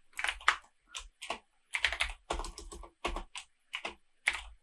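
Computer keyboard being typed on: short, irregular runs of keystroke clicks with brief pauses between them.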